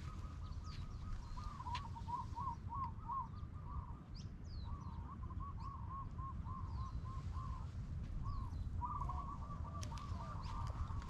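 Birds calling: three runs of short, arching notes repeated several times a second, with thin high chirps over them and a steady low rumble underneath.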